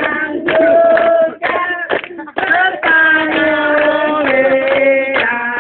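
A group of teenagers singing a birthday song together, mixed boys' and girls' voices holding long notes.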